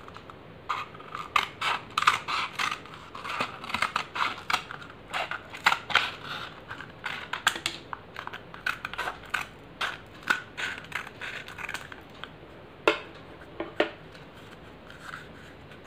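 Scissors snipping through a rolled paper cone to trim off the extra paper: a long run of quick, sharp cuts, then two more single snips after a short pause.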